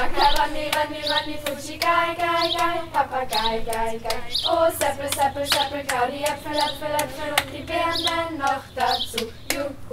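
A group of voices singing a rhythmic clapping-game song, with sharp hand claps about twice a second in time with the beat as the clap is passed around the circle from hand to hand.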